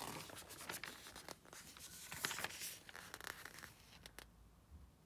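Glossy magazine pages being turned by hand, the paper rustling and crinkling with small taps, loudest about two seconds in and quieter near the end.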